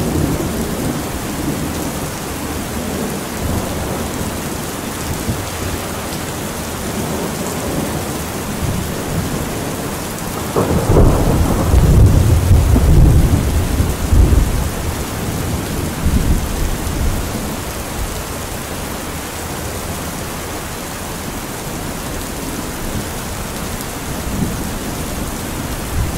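Steady rainfall, with a roll of thunder rumbling in about ten seconds in and lasting several seconds before fading back under the rain.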